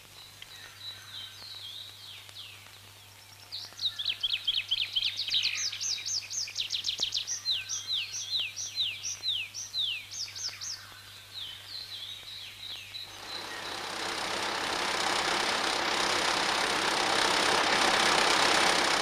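A songbird sings fast runs of short, high, descending chirps over quiet surroundings. About two-thirds of the way through, the steady even noise of logging machinery builds up and drowns out the birdsong.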